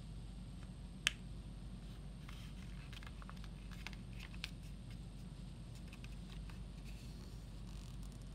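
Origami paper being handled and folded into a triangle: faint crinkles and light taps of the paper, with one sharp click about a second in, over a steady low hum.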